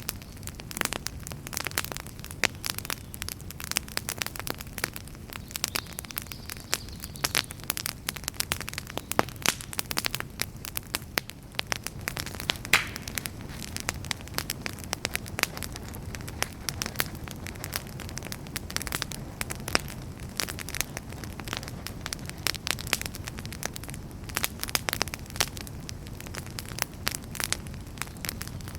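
Wood campfire crackling: a dense, irregular stream of sharp pops and snaps over a steady low rush of flame and wind.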